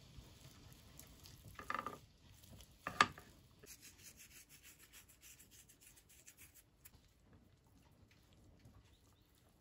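Close-up food-preparation handling sounds: soft rubbing and scraping, with a sharp knock about three seconds in, followed by a few seconds of rapid fine scratching that fades to quieter rubbing.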